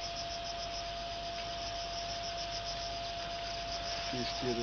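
Cricket chirping in fast, even pulses, over a steady faint tone and background hiss.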